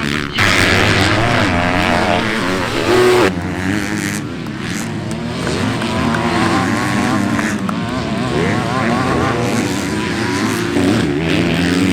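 Several motocross bikes racing together, their engines revving up and falling back over and over as they accelerate and shift.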